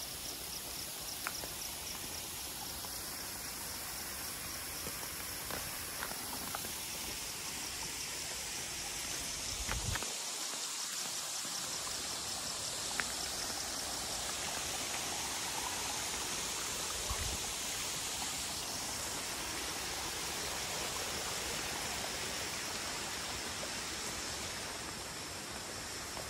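Steady rushing of flowing water, with a few faint clicks over it.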